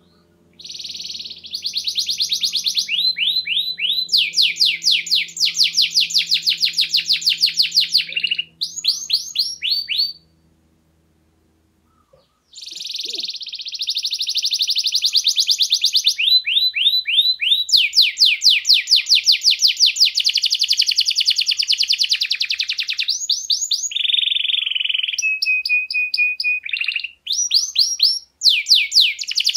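Domestic canary singing: long rolling trills of rapidly repeated high notes, one trill running straight into the next, with a break of about two seconds a third of the way in.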